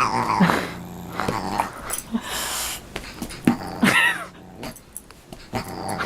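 Animals scuffling: growls and short high cries, with a hiss about two and a half seconds in.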